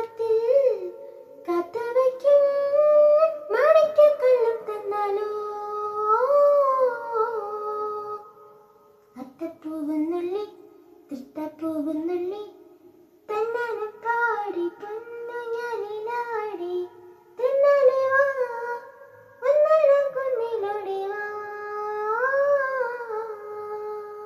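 A child singing a melody solo without accompaniment, in long held phrases separated by short pauses.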